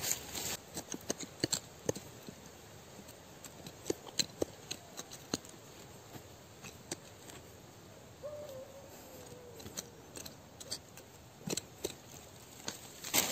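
Fingers scraping and pulling loose soil and dry leaf litter away from a serut tree's root, making a scatter of irregular small crackles and ticks.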